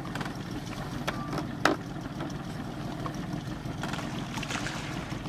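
A boat's engine idling, a steady low drone, with one sharp knock about one and a half seconds in.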